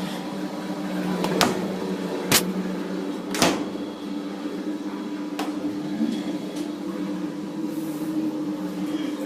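Fisher & Paykel GW712AU top-loading washing machine starting its final spin: a steady motor hum with two level tones, broken by a handful of sharp knocks, the loudest three within the first four seconds.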